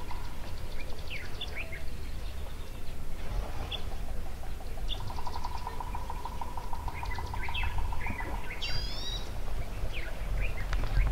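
Birds calling: short chirps and whistles throughout, a rapid even trill for about three seconds in the middle, and a quick run of high notes about two-thirds in, over a steady low rumble.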